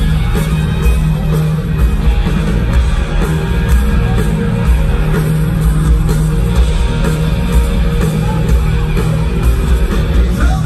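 Live rock band playing an instrumental passage at full volume: distorted electric guitars over bass and a steady drum beat, heard through the arena PA from the audience seats.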